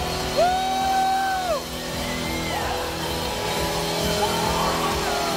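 Live rock band playing, with electric guitars, bass and drums. About half a second in, a long note rises, holds for about a second and falls away.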